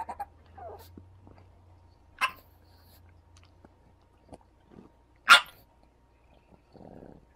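Pug giving two short, sharp barks about three seconds apart, the second louder, with softer small noises between: a pug's temper tantrum.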